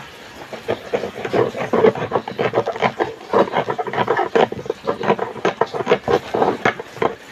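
A kitchen knife hacking and sawing through the lid of a tin can to open it: rapid, uneven metallic scraping and clicks.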